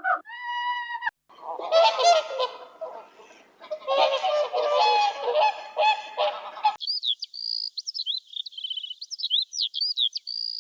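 Geese honking: one long held call, then many overlapping honks from a flock. About two-thirds of the way through this cuts abruptly to high-pitched bird chirps and twitters.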